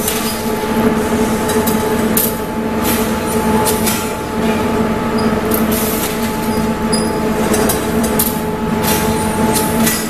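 Clay brick production line machinery running: a steady, loud hum from the extruder and cutter drives, with scattered sharp clicks and clanks.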